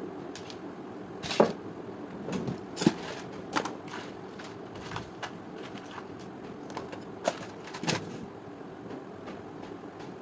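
Irregular sharp clicks and knocks from a steam iron being handled during repair, over a steady background hiss. There are about eight to ten, the loudest two near the start.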